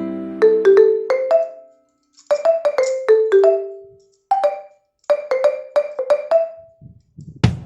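Background music: a light melody of short, ringing struck notes in phrases, with brief silences between them. A low drum beat comes in near the end.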